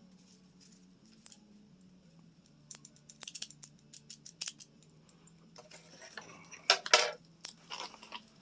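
A run of small sharp clicks and short crinkling handling noises, starting about three seconds in and loudest around seven seconds.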